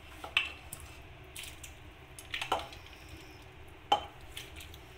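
Pieces of half-cooked mutton going into a non-stick pan of sautéed onions, with a few separate sharp knocks and soft squelches from the meat and a wooden spatula against the pan.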